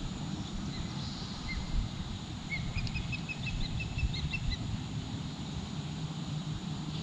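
Outdoor river ambience: a steady low rumble under small birds chirping in quick runs of short high notes, busiest a few seconds in.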